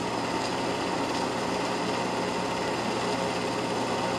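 Steady mechanical whir and hum of a running 8 mm film projector.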